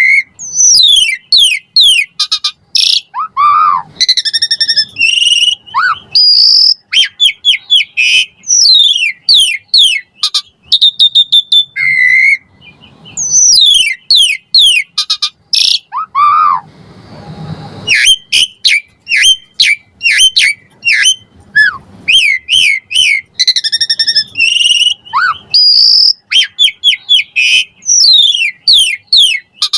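Asian pied starling (jalak suren) singing at full stretch: rapid, varied runs of sharp chirps and sweeping whistles, packed with mimicked 'isian' phrases, with a few lower slurred notes and one short pause midway.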